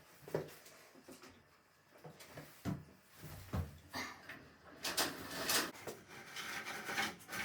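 Light knocks and clunks, then rubbing and scraping from about five seconds in: a retractable indoor clothesline being handled, its lines pulled out of the wall-mounted housing.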